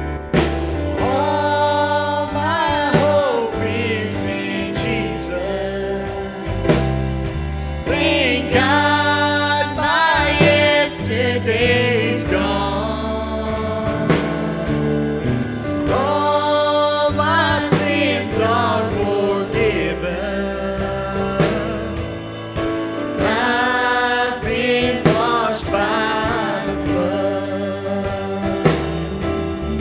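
A church worship band performing a gospel song live: several singers in harmony on microphones over acoustic guitar and bass guitar.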